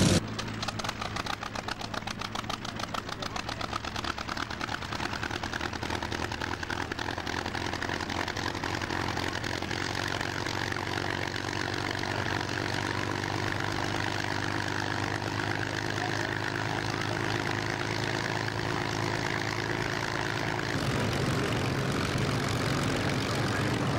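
Supermarine Spitfire's V12 piston engine idling with a rapid, uneven firing at first, settling to a steadier run. About 21 seconds in the sound shifts lower and a little louder.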